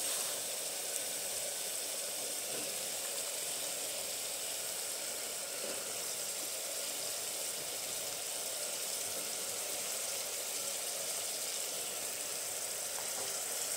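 Steady sizzling of spice paste frying in mustard oil in an aluminium pressure cooker as chopped ridge gourd pieces are added and stirred in with a ladle.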